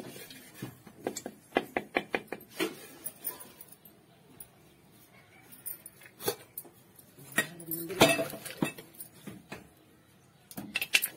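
Metal kitchen utensils and pots clinking and knocking: a quick run of taps near the start, then scattered knocks, loudest about eight seconds in, and a last flurry near the end.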